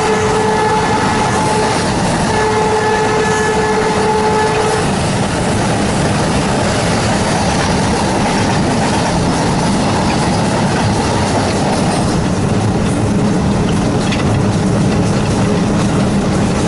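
WDG-3A Alco diesel locomotive's horn sounding, a blast that ends about a second in and a second steady blast from about two seconds in to nearly five seconds. After that the train runs on steadily, the locomotive's engine and the wheels on the rails making a continuous rumble.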